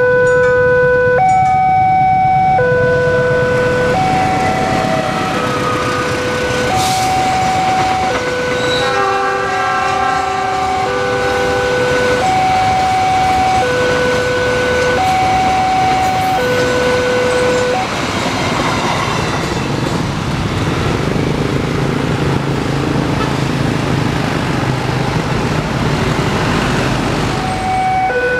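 Level-crossing warning alarm alternating between two notes, about one change a second and a half, while a freight train passes; a locomotive horn sounds briefly near the middle. The alarm stops about two thirds through, leaving the steady rumble of the freight wagons rolling by.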